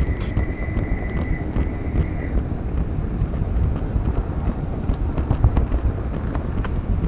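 Model train rolling along the track, a steady low rumble of wheels on rail with scattered sharp clicks. A thin steady high tone sounds over it and stops about two seconds in.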